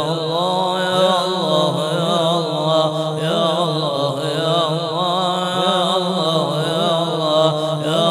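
Voices chanting together in an Islamic devotional chant, a continuous wavering melody held without breaks.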